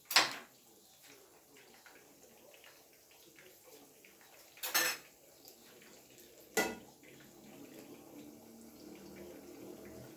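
Kitchen utensils clanking against dishes and cookware: three sharp clanks, the first at the very start, a quick double one near the middle and another a couple of seconds later, with faint small clinks between them.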